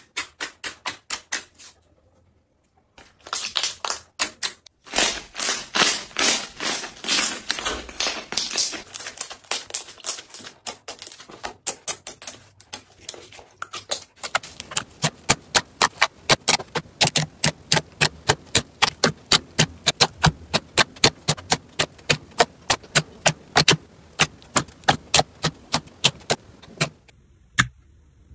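Glossy slime being poked, pressed and kneaded by hand, giving a long series of sharp wet clicks and pops as trapped air pockets burst. There is a short pause about two seconds in. From about halfway the pops fall into a steady rhythm of about two to three a second, stopping just before the end.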